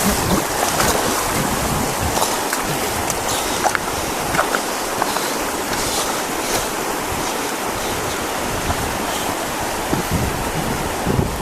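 Steady rush of a river's flowing water, with a few faint ticks.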